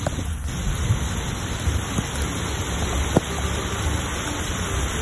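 Heavy rain pouring onto a flooded street: a steady, dense hiss with a low rumble underneath and one sharp click about three seconds in.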